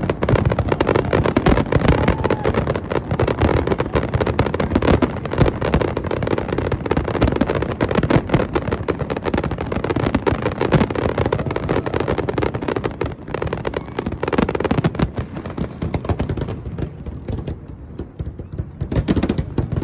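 Large fireworks display: a dense, continuous barrage of shells bursting and crackling, thinning out briefly near the end before picking up again.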